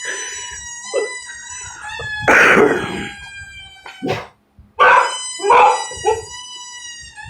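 A dog whining in long, high, steady tones, broken by a few short barks about two and a half and five seconds in.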